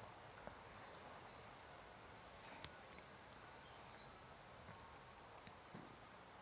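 Faint bird song: a run of quick high chirps and trills for a few seconds, with a single sharp click partway through.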